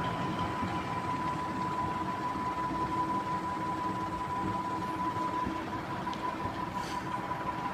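A whiteboard being wiped clean with a duster, heard as faint rubbing under a steady background hum with a constant high-pitched whine.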